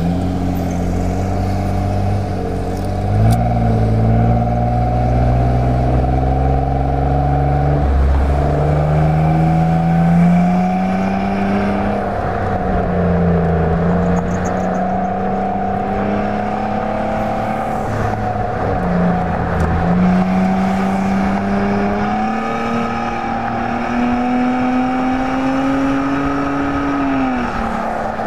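Exhaust of a 2017 Nissan Maxima's 3.5-litre V6 with the resonator deleted, running under way; the engine note climbs and drops several times as the throttle changes, with a sharper fall near the end.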